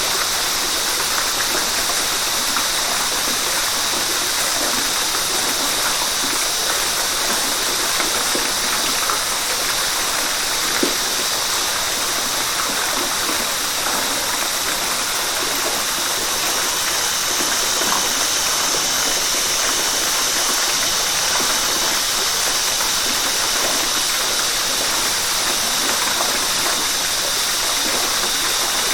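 River water rushing steadily, with small splashes scattered through.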